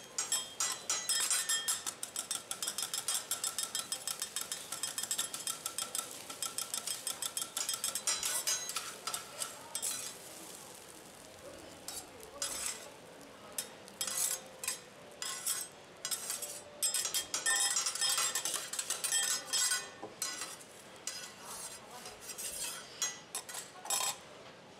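Two steel teppanyaki spatulas rapidly chopping and scraping scrambled egg on a steel griddle, giving fast metallic clacks with a ringing tone. The clacking eases off about ten seconds in, then comes back in shorter, scattered bursts.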